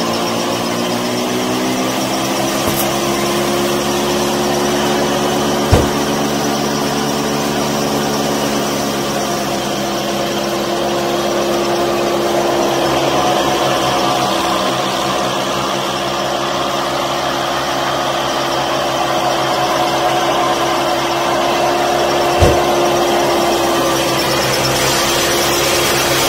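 Small electric motor driving a miniature wheat thresher, running steadily with an even motor whine. Two brief knocks cut through it, about six seconds in and near the end.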